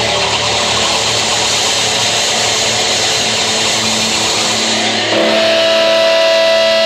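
Live rock band with distorted electric guitars playing a dense, noisy wash of sound; about five seconds in it gives way to one sustained guitar note ringing steadily.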